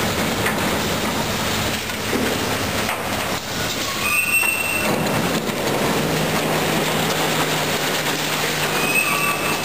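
Building demolition with heavy machinery working on steel and rubble: a constant din of grinding and clattering debris. A brief high metal squeal comes about four seconds in and again near the end, and a machine engine hums low from about six seconds in.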